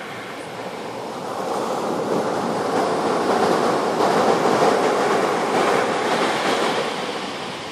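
Surf breaking on a sandy beach and washing up the shore: a steady rush of water that swells about a second in, is loudest mid-way, and eases off near the end.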